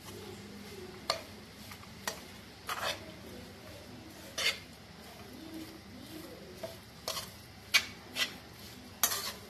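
A spoon stirring and scraping masala in a cooking pan on the stove, with irregular clinks and scrapes against the pan every second or so, the loudest near the end.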